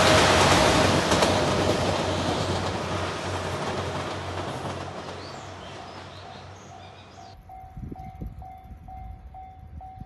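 JR Shikoku 2700-series diesel limited express train passing and moving away, its running noise fading steadily. After about seven seconds it gives way to a level-crossing bell ringing in an even repeating ding, about three times a second, with some low thumps.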